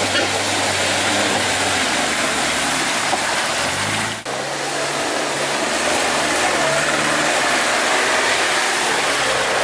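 An off-road vehicle's engine running under throttle, its pitch shifting as it pulls, with a sudden brief break about four seconds in.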